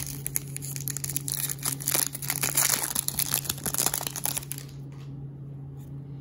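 Foil wrapper of a Topps Chrome baseball card pack crinkling and tearing as it is ripped open and the cards are pulled out. The crinkling stops about four and a half seconds in.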